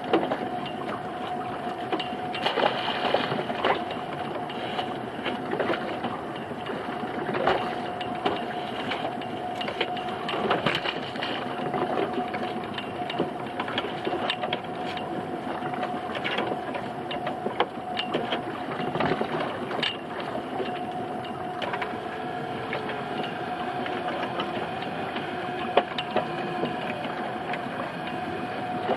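Small fishing boat's engine running steadily, with scattered knocks and clatters on top, the sharpest about a second in, around seven and a half seconds in, and near the end.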